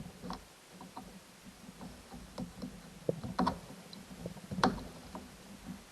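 Scattered small clicks and taps of a soldering iron and wire against a ride-on toy's wheel-motor terminal while a wire is being de-soldered; the two loudest knocks come about three and a half and four and a half seconds in.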